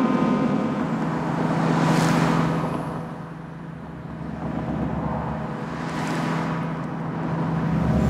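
Road traffic passing, with vehicles swelling up and fading away about two seconds in and again about six seconds in, over a steady low tone.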